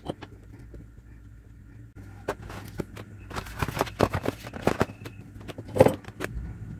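A run of irregular clicks, taps and knocks from parts and tools being handled on a workbench, starting about two seconds in and growing busier, over a steady low hum.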